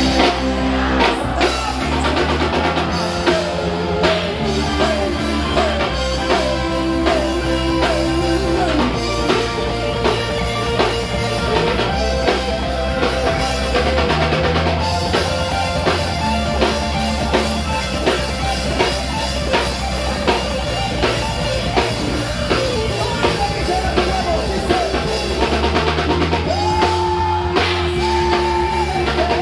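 Live rock band playing a song: a drum kit keeping a steady beat under guitar and a singing voice.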